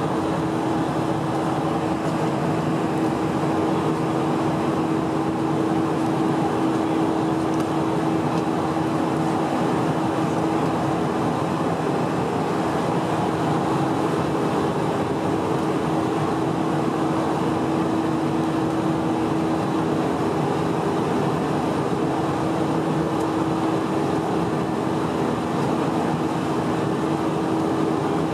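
Steady cabin noise of an Airbus A320-232 climbing, heard from a window seat over the wing: its IAE V2500 turbofan engines running and air rushing past the fuselage, with a steady humming tone throughout.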